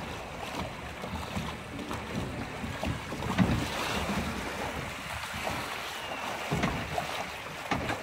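Water rushing and splashing along a log-flume channel as the ride boat travels down it, mixed with wind buffeting the microphone and occasional low knocks. The sound cuts in suddenly at the start.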